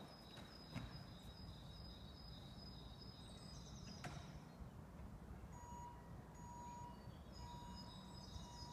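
Near silence, with faint, short, high bird chirps repeating in the background.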